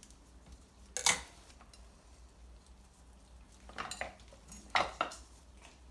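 Kitchen clatter of utensils on a worktop: three short sharp clicks, the loudest about a second in, two more a little before and after four to five seconds.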